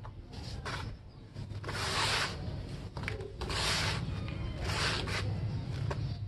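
Hands crumbling and rubbing dry red dirt in a tub: three grainy rushes of falling, grinding soil about a second apart, with a few small crunches from hard lumps breaking.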